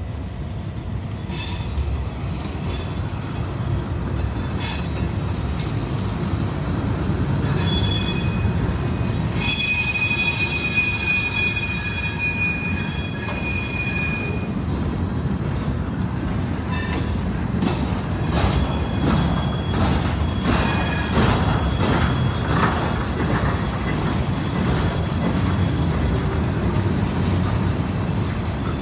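Freight train rolling past at a road crossing: a steady heavy rumble of freight cars that builds over the first couple of seconds. From about ten to fourteen seconds in a high wheel squeal rises over it, and in the second half the wheels click repeatedly over the track.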